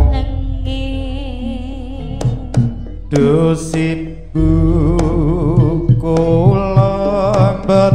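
Live jaranan gamelan music: drum strokes and pitched percussion under a wavering melody line. A deep low note comes in about four and a half seconds in.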